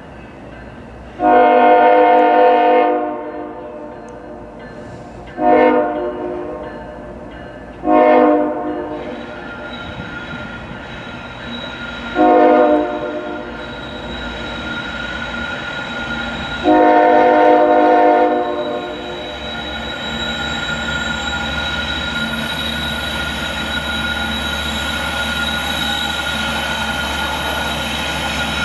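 A Norfolk Southern coal train's locomotive air horn sounds five blasts, the first and last long and three short ones between. After that the train rumbles closer, the rumble growing louder with a high wheel squeal and hiss over it.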